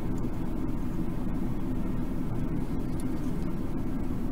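Steady, even low background noise like a running fan or room hum, with a few faint light clicks about three seconds in as the LED cube is handled.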